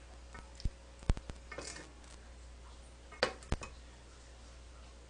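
Chopsticks clicking and clinking against a steel batter bowl and frying pot: a few sharp, separate knocks, the loudest about a second in and a pair more about three and a half seconds in, with a brief scrape between them.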